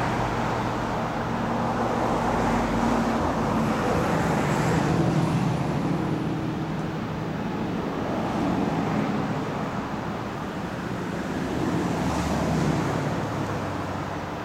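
Road traffic: vehicle engines running and passing, their hum rising and falling in slow swells over a steady rushing noise.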